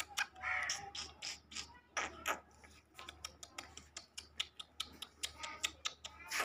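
Irregular run of sharp clicks and ticks, several a second, with a couple of brief soft calls, from a caged black francolin.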